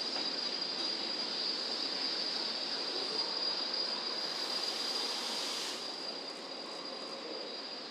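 Cable car station machinery running: a steady mechanical rumble and hiss with a constant high whine, and a brief rush of hissing about halfway through.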